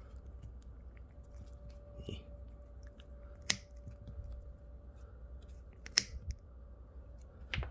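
Diagonal cutters snipping off the excess ends of a tire plug strip sticking out of the tread: two sharp snips about two and a half seconds apart, then a smaller click near the end.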